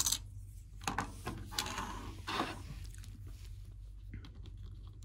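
Light clicks, taps and a brief scrape of hard plastic handled on a wooden tabletop: an action figure picked up and its feet pressed onto the pegs of a clear plastic stand. A sharp tap comes right at the start, a few lighter clicks about a second in, and a short scrape about two seconds in.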